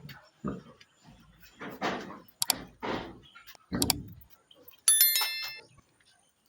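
A few short scuffling noises and two sharp clicks, then a loud metallic clang about five seconds in that rings for about half a second, like a metal pen fitting being struck.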